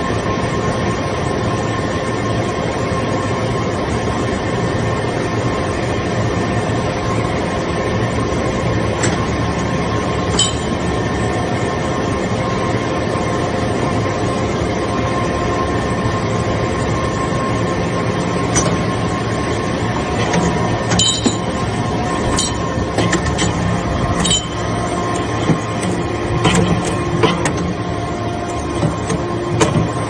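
Hydraulic metal-chip briquetting press running: a loud, steady hum and whine from its pump unit, with sharp metallic clanks and clicks that become more frequent in the second half.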